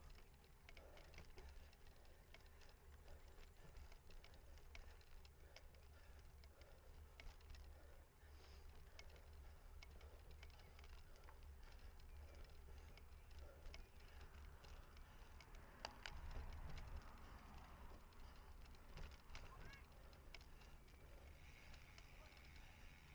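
Faint low rumble with many small clicks and rattles from a cyclocross bicycle being ridden; it gets a little louder about two-thirds of the way through.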